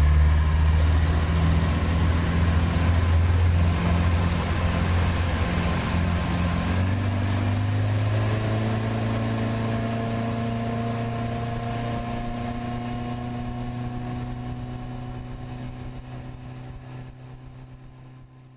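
Boat's outboard motor running and pushing the boat along, its pitch climbing about seven seconds in as it comes up to speed and then holding steady, over a hiss of wind and water. The sound fades out near the end.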